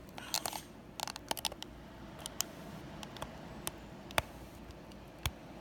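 Small clicks, taps and rustles of hands handling a laptop display panel and its connecting cable, with a cluster of rustling in the first second and a half and sharp single clicks near four and five seconds.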